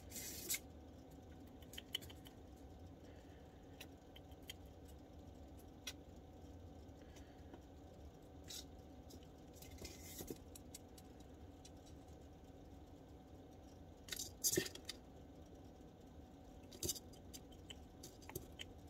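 Quiet room with a low steady hum and a few faint clicks and rustles from hand-feeding a baby red squirrel with a syringe; the loudest is a short cluster of clicks about three-quarters of the way through.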